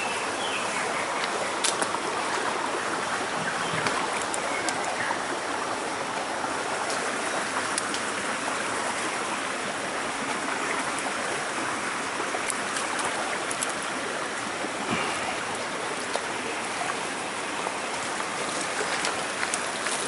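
Shallow rocky stream running steadily, an even rush of flowing water, with a few light clicks here and there.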